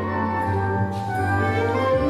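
Instrumental folk dance music, steady and fairly loud, playing for a stage folk dance.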